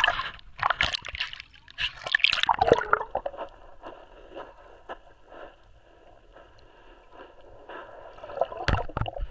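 Seawater splashing and sloshing against a waterproof camera at the surface, turning muffled and quiet once the camera is underwater about three seconds in; splashing picks up again near the end.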